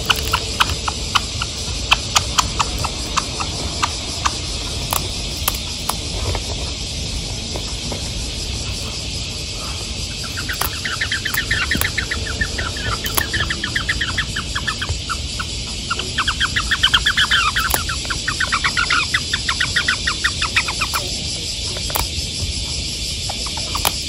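Java sparrow singing a long, rapid clicking, chattering song over a steady drone of cicadas. In the first several seconds there are sharp taps, the sparrow's beak pecking at a plastic handheld game console.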